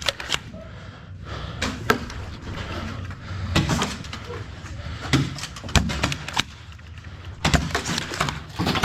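Scattered sharp knocks and clacks, a handful of them at irregular intervals, from players and Nerf gear moving about during play, with faint voices between them.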